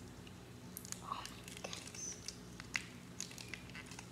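Faint, scattered crinkles and soft clicks of a small clear plastic wrapper being handled as toy putty is pulled out of it, over a low steady hum.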